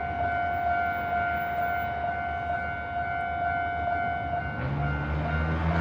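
Japanese level-crossing warning bell ringing steadily, about two strokes a second. About four and a half seconds in, a train arrives, its rumble and low motor tones rising under the bell.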